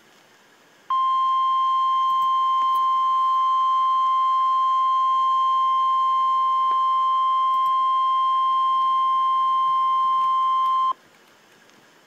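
NOAA Weather Radio warning alarm tone: a single steady tone that starts about a second in, holds for about ten seconds and cuts off suddenly. It is the alert signal that announces an emergency message, here a severe thunderstorm watch.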